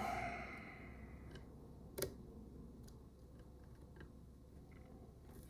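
Faint clicks of multimeter probe tips touching a circuit board during a continuity test, with one sharper click about two seconds in.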